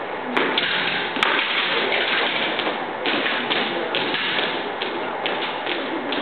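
Armed drill team's rifles being slapped in the hands and thumped down on a hard gym floor, with stamping steps: a run of sharp knocks and slaps at irregular intervals over a steady background hiss.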